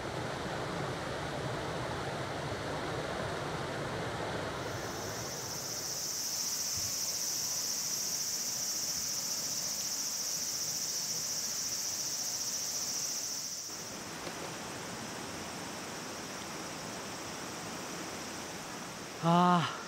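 Mountain river rushing over rocks, a steady hiss of water. About five seconds in, a loud, steady, high-pitched insect drone comes in over it and stops about two-thirds of the way through, leaving the quieter rush of water.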